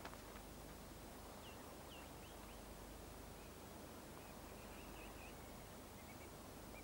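Faint birdsong: a few short high chirps about a second and a half in, then brief warbling phrases later, over a low steady hiss.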